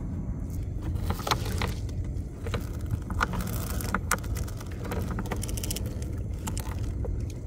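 Gill net being hauled into a small boat: scattered light clicks and knocks over a steady low rumble.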